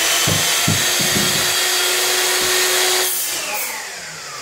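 Electric power tool motor running steadily at full speed, then switched off about three seconds in and winding down with a falling whine.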